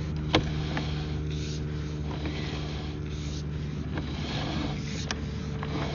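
Steady low engine-like hum of a running motor, with a few sharp clicks and knocks, the loudest about a third of a second in.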